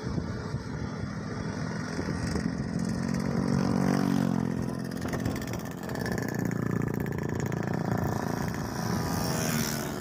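Motorcycle engine running at road speed, heard from the rider's seat with rushing wind. The engine note swells about three seconds in, then slides down in pitch as it eases off.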